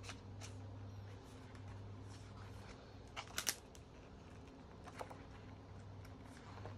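Pages of a glossy photo magazine being handled and turned by hand: a short crisp paper rustle about three seconds in, with a few lighter paper touches before and after, over a faint steady low hum.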